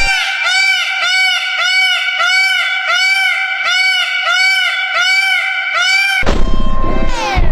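An animal calling over and over, about two high-pitched calls a second, each rising and then falling in pitch. About six seconds in it stops and a rougher sound with falling and rising pitch sweeps takes over.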